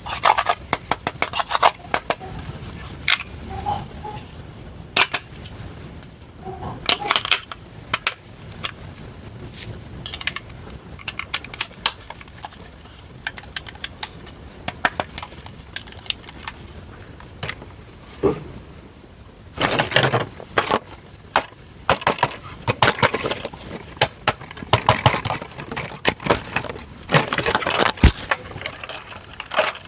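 Remote-control toy excavator's small electric motors with a steady high whine, and its plastic gears and parts clicking and rattling. The clicking grows dense for several seconds in the second half.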